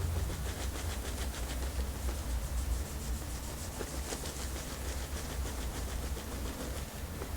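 Hands rubbing over skin in repeated massage strokes, soft and rustly, over a steady low rumble.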